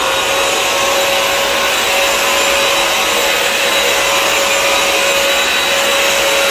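Bissell CrossWave wet-dry floor cleaner running steadily: an even motor whine with a high whistle over a rush of air.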